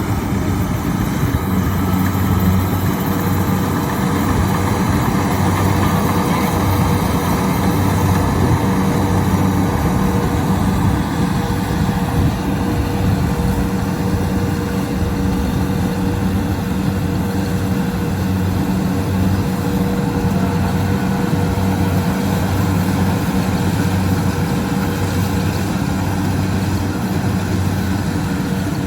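Kubota DC-70 Plus rice combine harvester's diesel engine running steadily, with a steady high whine over it from about three seconds in until a few seconds before the end.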